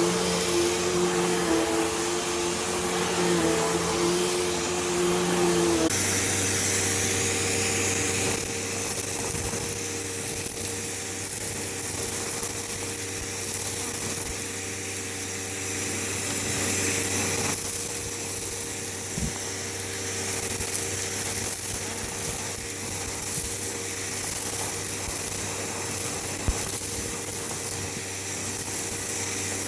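Hoover Elite Rewind Plus vacuum cleaner running steadily, its motor hum with a held whine. The tone changes abruptly about six seconds in.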